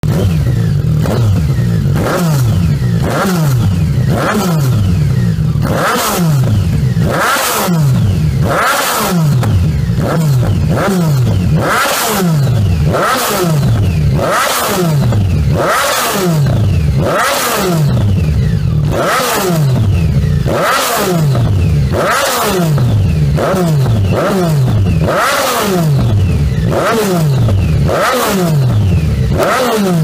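Yamaha MT-09's three-cylinder engine free-revving through a Scorpion Serket Taper exhaust. It makes repeated quick throttle blips, about one a second, each rising sharply in pitch and falling back.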